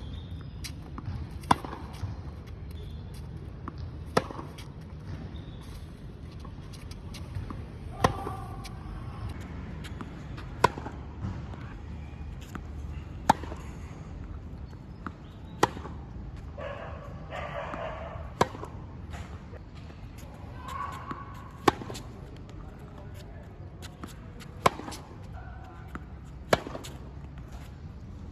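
Tennis ball hit back and forth with rackets in a rally: sharp pops of ball on strings every two to three seconds, over a steady low background noise.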